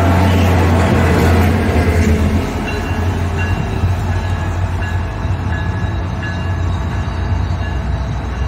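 SunRail diesel locomotive passing close by with a loud, low engine rumble and wheel noise, which drops away about two and a half seconds in as the train pulls off. A grade-crossing bell then rings about twice a second.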